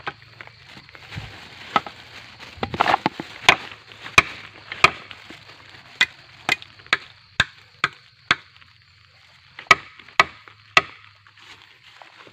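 Sharp chopping blows of a blade into a gombong bamboo stem, about fifteen strikes at uneven intervals with a short pause partway through, cutting the culm open to get at the water stored inside.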